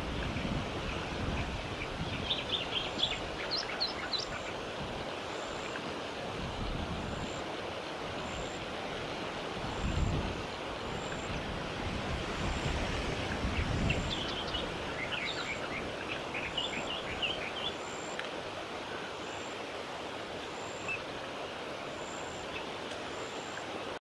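Steady wind noise on the microphone, with stronger gusts about ten and fourteen seconds in. Over it come clusters of short, high chirps from white-plumed honeyeaters at the nest, early on and again in the second half.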